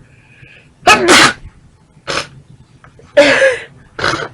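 A woman sneezing repeatedly in a sneeze attack: loud sneezes about a second in and about three seconds in, with shorter, lighter bursts between them and near the end.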